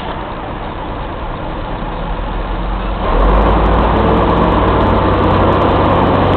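Old FDNY Mack CF fire engine running on the move, heard from inside its cab; the engine grows louder about three seconds in and holds there.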